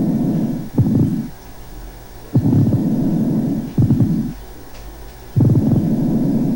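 Pleural friction rub heard through a stethoscope in a patient with tuberculous pleurisy: a rasping, grating rub with each breath, caused by inflamed parietal and visceral pleura rubbing together. It comes as a longer stretch and then a shorter one, repeating about every three seconds, in both inspiration and expiration.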